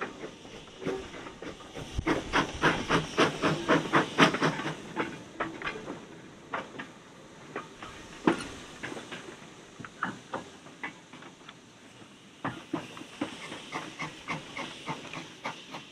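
Small saddle-tank steam locomotive moving slowly with a short rake of wagons while shunting, steam hissing. A quick run of sharp clanks and knocks from the wheels and couplings comes a couple of seconds in, then thins out, with more clanking near the end.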